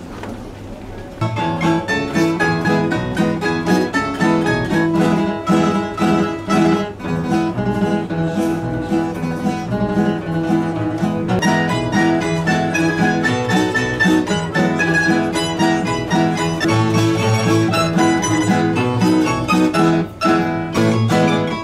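A Croatian folk string band strikes up about a second in: strummed and picked acoustic guitars and mandolin-like lutes over a double bass, playing a lively, rhythmic tune.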